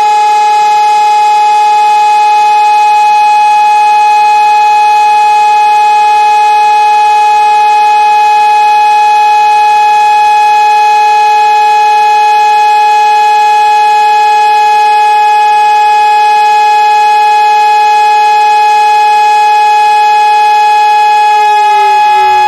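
Electronic fire-station alarm siren sounding a loud, steady two-tone note, calling the volunteer firefighters out. Near the end the pitch starts to fall.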